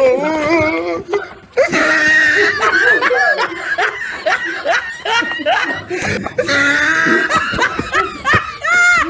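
People laughing loudly, several voices at once, with some wordless exclamations.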